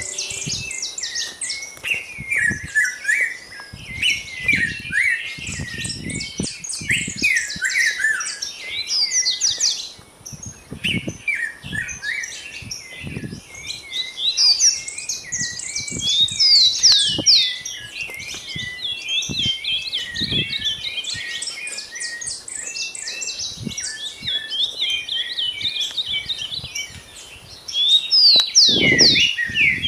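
Many small birds chirping and twittering at once in a dense dawn chorus, with a brief lull about a third of the way through, and occasional low thumps underneath.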